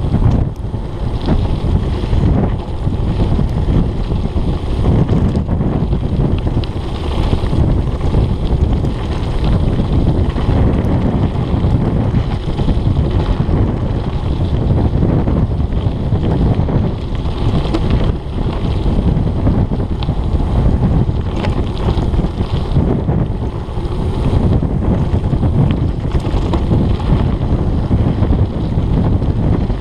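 Heavy wind buffeting on the camera's microphone during a fast mountain-bike descent, a steady low rumble with tyres crunching and the bike rattling over the rough dirt track.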